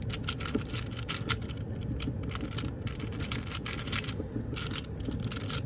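Plastic QiYi 4x4 speed cube being turned rapidly by hand, its layers clicking and scraping as they rotate, with the inner layers turning smoothly enough.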